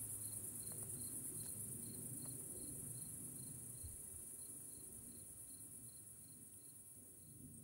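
Night insects: a cricket chirps evenly about two or three times a second over a steady, very high-pitched insect trill. Both fade slowly away.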